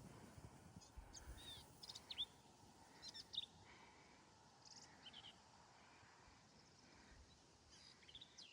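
Faint wild bird calls: scattered short, sharp chirps, in small clusters about a second and a half in, around three seconds, near five seconds and again near the end, over a quiet outdoor hiss. A couple of low thumps come near the start.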